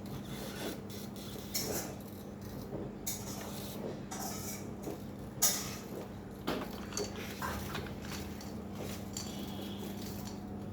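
Scattered light knocks, taps and clatter of things being handled, the sharpest about five and a half seconds in, over a steady low hum.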